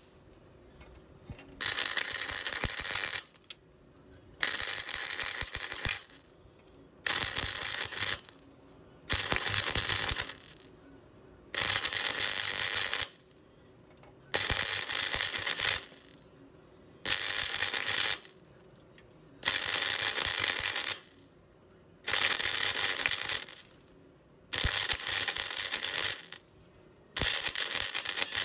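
MIG welder laying a bead along a car's steel pinch weld in short runs: about eleven bursts of arc hiss, each a second or so long, roughly every two and a half seconds, with quiet gaps between.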